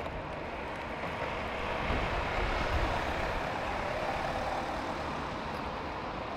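Steady road traffic noise, a low rushing of passing vehicles, a little louder around two to three seconds in.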